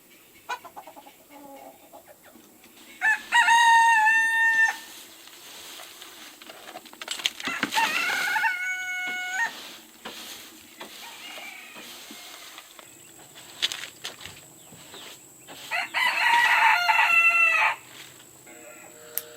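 Roosters crowing three times, each crow about two seconds long, with quieter gaps between.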